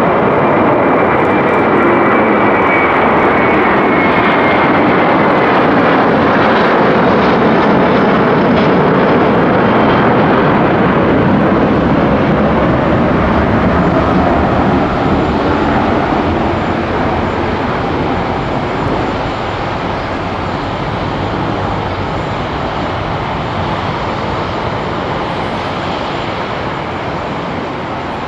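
Airbus A330-300 airliner's twin Pratt & Whitney PW4000 turbofans at takeoff thrust just after liftoff: a loud jet roar with a high whine that falls in pitch over the first few seconds. The roar fades gradually through the second half as the aircraft climbs away.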